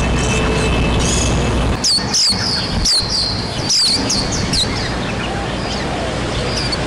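White-eye (pleci) chirping: a quick run of short, sharp, high-pitched notes about two to five seconds in, over a steady background hiss.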